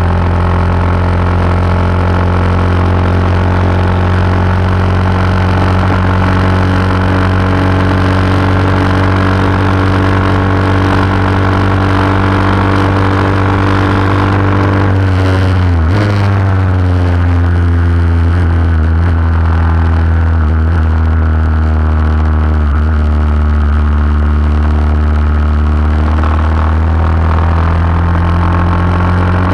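Vintage lightweight racing motorcycle engine heard from its own onboard camera, held at high revs down the straight. About halfway through the revs drop sharply in steps as it shifts down for the corner, then climb steadily as it pulls out, with wind rush underneath.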